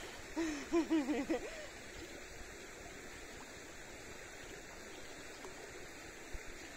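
Shallow river water flowing steadily, with a few short rising-and-falling calls from a person's voice in the first second and a half.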